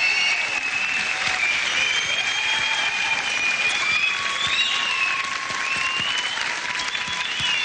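Studio audience applauding steadily after a dramatic monologue, with high held notes sounding over the clapping.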